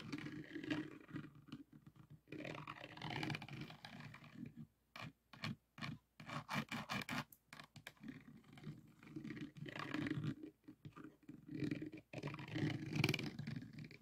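Diamond painting: a plastic drill pen scraping and tapping over the resin drills on the canvas, in an irregular run of scratching with a quick series of taps in the middle.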